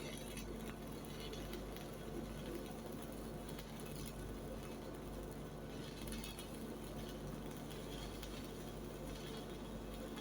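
Stick-welding arc from an E6013 electrode, crackling steadily while a fillet weld is run in the flat position, over a steady low hum.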